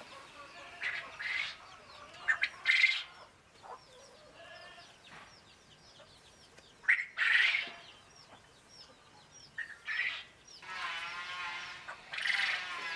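Farmyard poultry calling several times in loud, harsh bursts, over a steady twittering of small birds.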